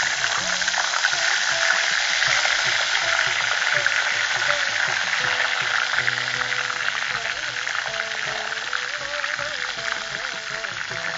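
Ivy gourd leaf paste frying in hot sesame oil in a steel pan, a dense steady sizzle of fine crackles as the paste cooks down into a herbal medicinal oil. Soft background music with sustained low notes plays underneath.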